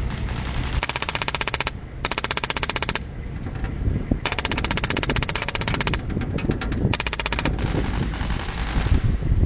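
Air-powered (HPA) airsoft machine gun firing in rapid bursts: four main bursts of fast clicking, the longest about a second and a half, with shorter, fainter bursts after them. A steady low vehicle rumble runs underneath.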